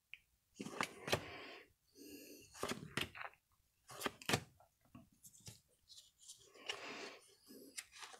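Stack of Topps baseball cards being flipped through by hand, one card at a time: an irregular run of short swishes and light snaps as each card slides off the stack.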